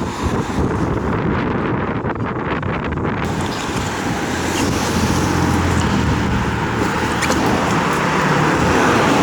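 Wind buffeting the microphone while riding along a road, over a steady low vehicle running noise.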